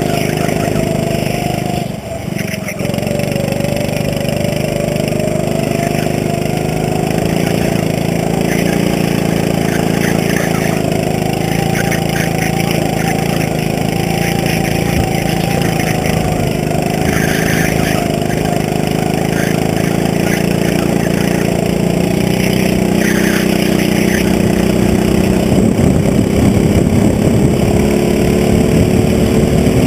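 Go-kart engine heard on board, running hard through the corners. It dips briefly about two seconds in, then holds steady and climbs in pitch near the end as the kart accelerates down the straight.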